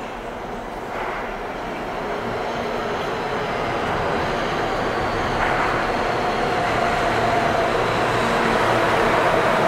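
New York City subway train pulling into the station, its rumble and rail noise growing steadily louder, with a steady whine coming in over it.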